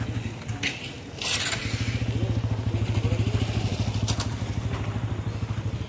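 A small engine running steadily, a low even hum with a fast pulse. A few short scrapes sound over it.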